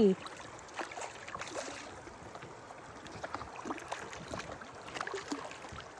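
Small scattered knocks and light water sounds around a kayak as a freshly landed fish is handled.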